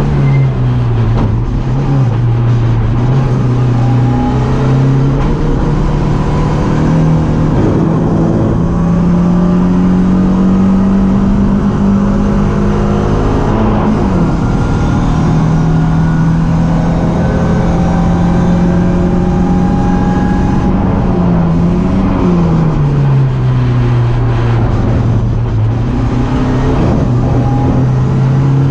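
A BMW 318ti race car's four-cylinder engine running hard at racing speed. Its note holds steady for stretches of several seconds, then drops and climbs again a few times, over a steady rush of road and wind noise.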